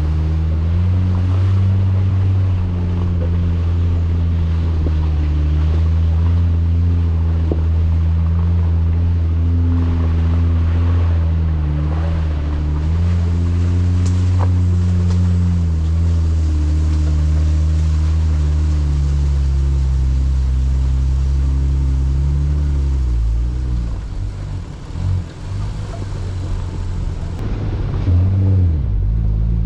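Off-road vehicle engine running at low, fairly steady revs, the pitch shifting a little now and then. Near the end the revs dip and rise in quick blips.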